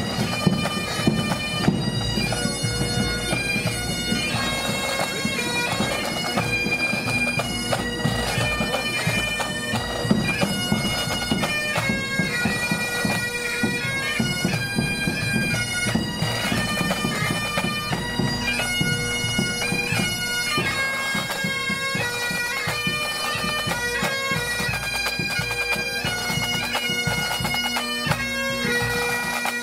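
Pipe band playing a march: Great Highland bagpipes sound a changing melody over a steady drone, with snare, tenor and bass drums beating beneath.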